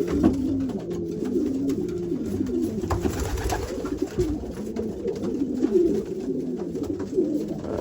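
Racing pigeon cockbirds cooing continuously in a loft, many birds calling over one another while they compete for nest boxes.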